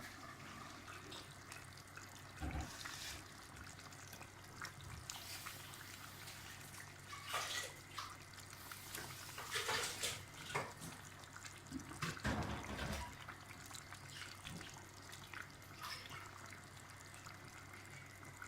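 Pot of tomato stew bubbling with wet liquid sounds, with a few louder splashes and knocks as pieces of smoked fish go in.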